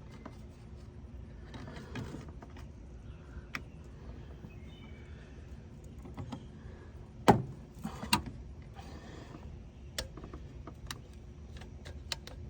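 Scattered clicks, clinks and knocks of hands and metal parts as a thermostat and its gasket are worked into the engine's thermostat housing, with two sharper knocks about seven and eight seconds in.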